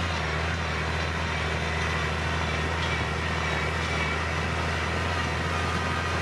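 Case IH Maxxum tractor's diesel engine running steadily at working speed while pulling a tillage implement through dry soil: an even, unbroken drone.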